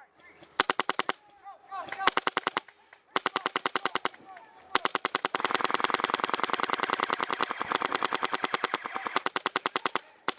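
Airsoft electric rifle firing full-auto, a rapid, even clatter of roughly twenty shots a second. Three short bursts come first, then one long burst of about five seconds.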